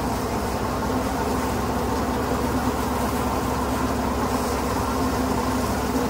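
A tractor-driven paddy thresher is running steadily while it threshes rice. The engine and the threshing drum make one constant mechanical hum that does not change.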